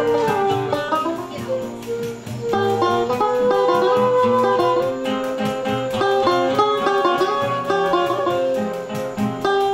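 Live acoustic choro ensemble playing: a banjo picking fast runs over an acoustic guitar accompaniment, joined by a flute, with one long held melody note through the middle.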